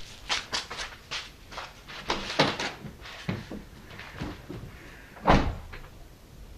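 A run of clicks and knocks, then one heavy thump about five seconds in, like a door being shut.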